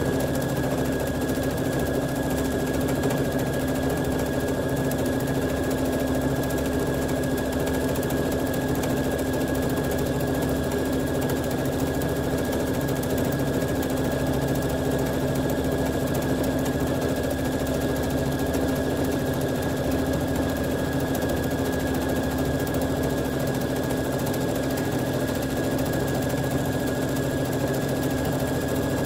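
Electric sewing machine running at a steady speed, stitching through water-soluble film: an even motor hum with a thin high whine, run from the machine's start/stop button rather than a foot pedal.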